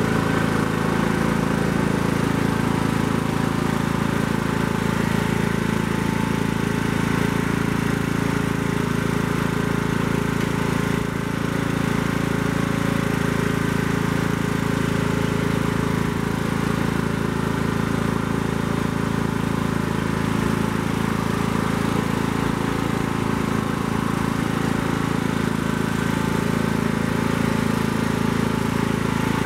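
Riding lawn mower's engine running steadily at a constant pitch as it tows a heavy smoker trailer.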